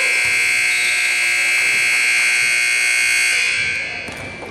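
Basketball scoreboard horn sounding one long, steady, high-pitched blast that fades out near the end.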